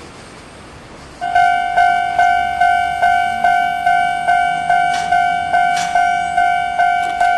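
Japanese railway level-crossing warning bell, starting about a second in and ringing an even single-pitched ding, a little over two strikes a second, each strike fading before the next: the warning that a train is approaching.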